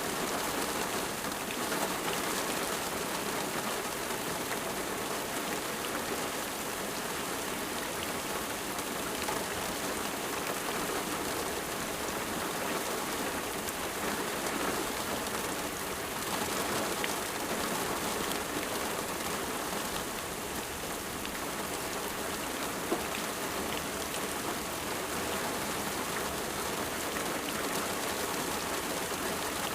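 Steady rain falling on a surface, an even hiss of many drops with no letting up.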